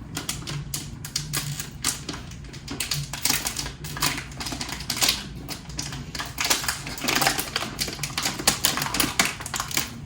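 Close-up crunching of Goldfish crackers being chewed: a dense, irregular run of sharp crisp cracks, several a second.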